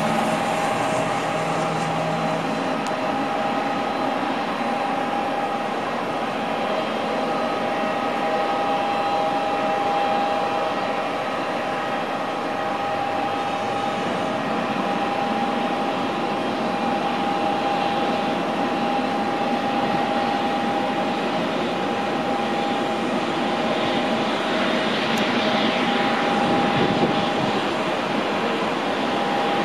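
Boeing 777's GE90 turbofan engines at taxi power: a steady whine over a broad rush of jet noise, swelling a little louder and brighter near the end.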